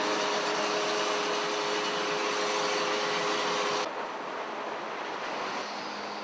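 Hydraulic mobile crane running: a steady mechanical noise with a constant whine. It drops abruptly about four seconds in to a quieter, steady background.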